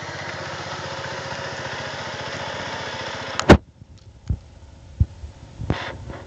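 An engine idling with a steady, even pulse, which stops suddenly with a loud knock about three and a half seconds in; a few scattered clicks and knocks follow.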